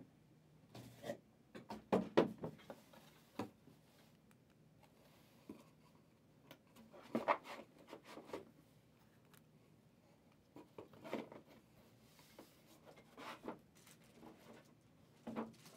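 Trading cards being handled on a table: scattered short scrapes and rustles, louder around two seconds and seven seconds in.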